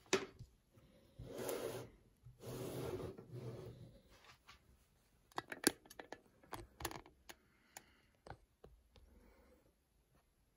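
Packaging being handled during an unboxing: two long rustling, tearing sounds, then a run of sharp clicks and light knocks that die away.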